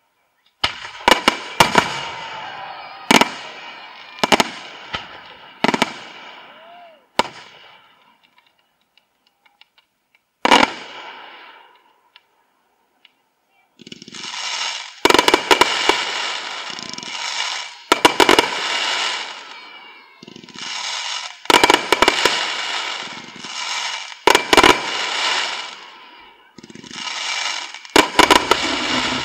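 Large fireworks display: aerial shells burst with sharp bangs, each followed by a crackling, hissing tail that fades over a second or so. There is a lull of a few seconds near the middle, then bursts follow one another every second or two.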